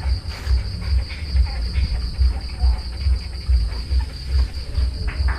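Crickets trilling steadily and high, over an uneven low rumble.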